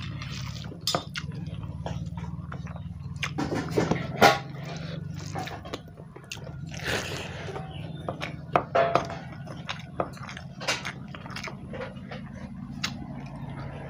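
A person eating wet rice by hand from a steel plate: fingers squelching through the rice and tapping the plate, with wet chewing and mouth smacks that come as a scattering of short sharp clicks, the loudest about four seconds in. A steady low hum runs underneath.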